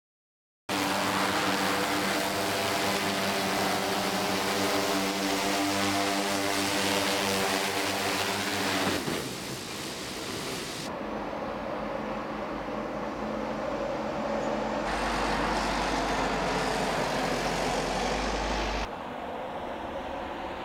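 Multirotor delivery drone's propellers humming, a steady pitched buzz over rushing noise, until it cuts off about nine seconds in. After that comes a rushing noise without a clear pitch, which changes abruptly several times.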